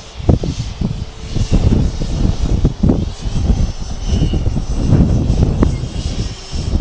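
Strong gusty wind buffeting the microphone in uneven, rising and falling surges, with a faint high thin whine above it.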